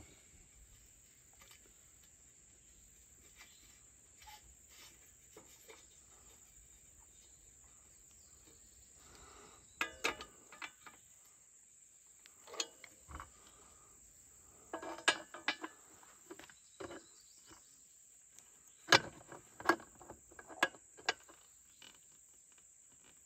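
Tongue-and-groove pliers and a brass pipe fitting clinking and knocking against a stainless-steel UV light housing as the fitting is threaded on and tightened, in scattered sharp clicks that come mostly in the second half. A steady high-pitched insect drone runs underneath.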